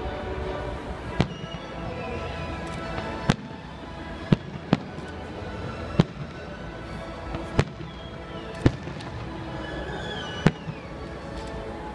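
Fireworks display: aerial shells bursting with sharp bangs, about eight at uneven intervals, over steady background music.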